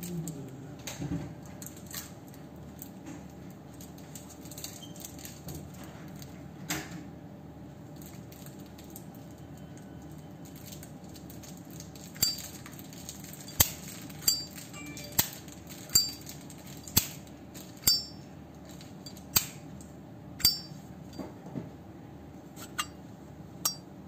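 A solid-brass Zippo lighter being handled, quietly at first. From about halfway, sharp metallic clicks come roughly once a second, a dozen or so in all, typical of the hinged lid being flipped open and snapped shut.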